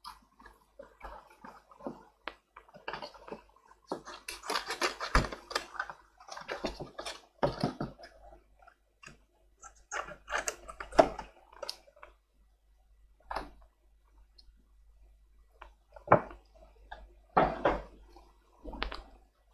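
Irregular rustling and scraping of thick gift-bag paper being handled, with sharp clicks now and then. The busiest stretch comes about four to six seconds in, with a few more sharp bursts later.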